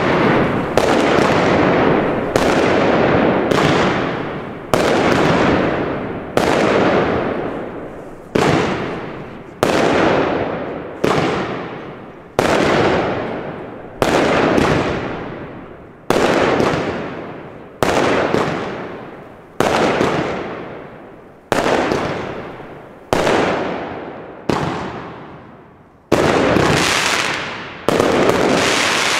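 Consumer firework battery firing aerial shots one after another, about seventeen in all, roughly one every one and a half to two seconds; each shot bursts sharply and then trails off over a second or so.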